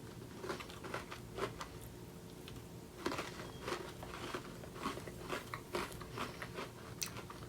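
A person biting into and chewing a Toffee Crunch Oreo cookie close to the microphone: quiet, irregular crunches.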